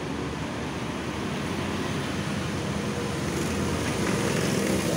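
A motor engine running steadily, with a low hum over background noise, getting slightly louder about four seconds in.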